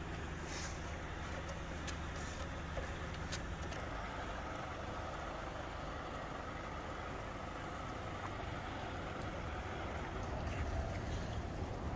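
A truck engine idling steadily, with a low even hum and a few faint clicks over it.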